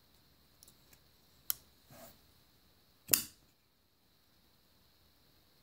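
Spyderco Yojimbo 2 folding knife being worked in the hands. There are a few light clicks, then a sharp click, and about three seconds in a much louder snap as the blade swings on its compression lock.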